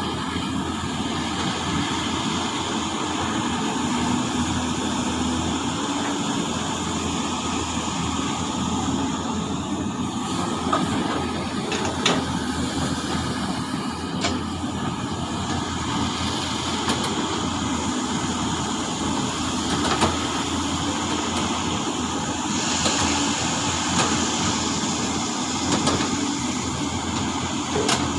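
Large excavator's diesel engine running steadily under work, with a few sharp knocks.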